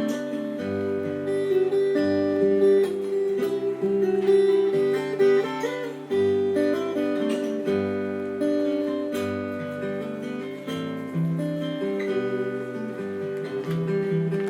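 Solo fingerstyle acoustic guitar playing a slow, gentle melody, notes left ringing over low bass notes plucked every second or two.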